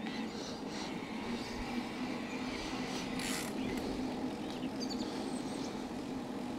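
E-bike on the move: a steady drive hum with rolling and wind noise, and a brief rush of noise about three seconds in.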